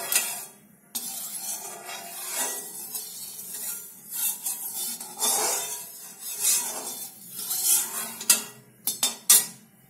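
A perforated metal skimmer spoon scraping and rubbing around the inside of a metal kadhai, spreading oil over the pan to coat it. It makes repeated scraping strokes, with a few sharp metal clinks near the end.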